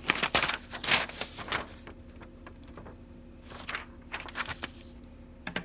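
Marker scratching on paper in quick back-and-forth colouring strokes, one run of strokes in the first second and a half and another around four seconds in.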